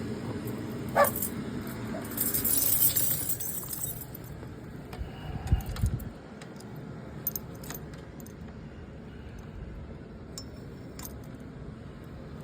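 Small metal pieces jingling and clinking, loudest from about two to four seconds in, with scattered light clicks and a couple of dull thumps about six seconds in.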